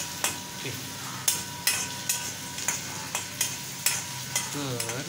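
Chopped onion sizzling in oil in a wok while a spoon stirs it, the strokes scraping and knocking against the pan two to three times a second. The onion is being fried slowly until it starts to colour.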